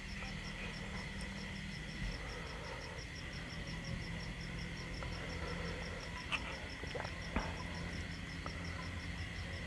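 Insect chirping in a rapid, even pulse, several chirps a second, over a steady high tone and a low hum; a few faint clicks a little past halfway.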